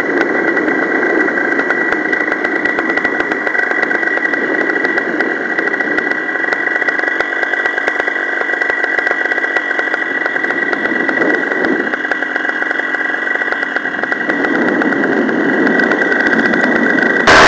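Paramotor engine and propeller running steadily in flight, a constant high whine over the engine drone, growing a little louder near the end.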